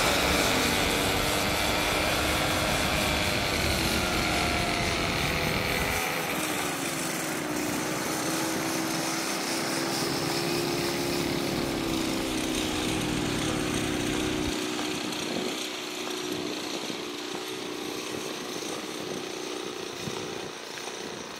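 Boeing 737-800's CFM56-7B turbofan engines at takeoff power: a steady jet roar with a whine in it, the pitch sliding slightly and the sound slowly fading as the airliner rolls away down the runway and climbs out.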